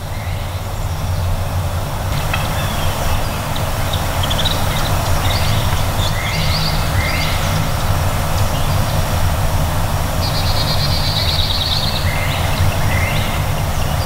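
Small songbirds calling in pine woods: short chirps and downward-sliding notes, with a fast, even trill about two-thirds of the way through. All of it sits over a steady low rumble.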